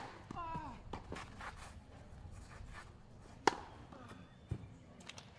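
A few sharp, isolated knocks of a tennis ball on a clay court, about three seconds apart, with faint voices in the background.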